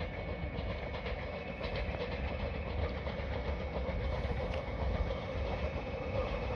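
A train running past on the rails: a steady rumble with faint clacks of the wheels over rail joints.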